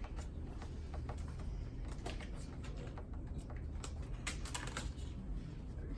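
Scattered light clicks and taps, coming faster for a moment about four seconds in, over a steady low hum.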